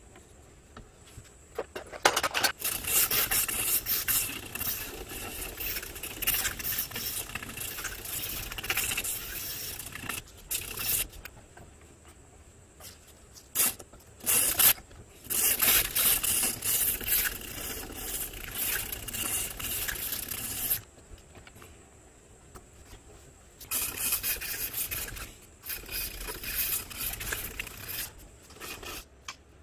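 Hand file scraping back and forth over an ebony knife handle held in a bench vise, shaping the wood, in three bouts of quick strokes with short pauses between.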